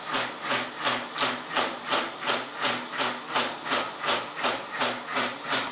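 Electric mixer grinder jar puffing out smoke in a rhythmic chuffing hiss, about three puffs a second, like a steam locomotive.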